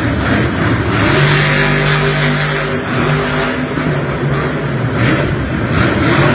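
Monster truck engine revving hard, its pitch shifting up and down as the throttle is worked over the jumps.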